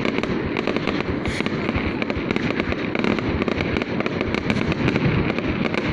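Fireworks going off continuously: dense, rapid crackling and popping over a steady rumble, with no pause.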